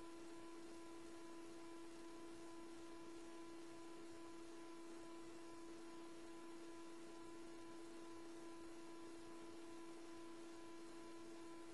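Faint steady hum over a low hiss, with no change or distinct events.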